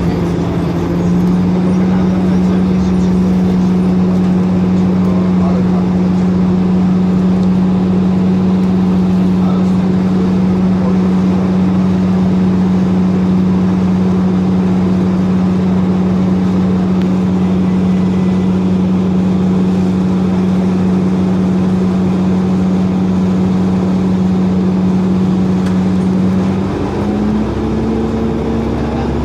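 Orion VII hybrid-electric transit bus heard from inside, its drivetrain giving a steady, loud hum over road noise. About 27 seconds in the pitch steps and then starts to rise as the bus picks up speed.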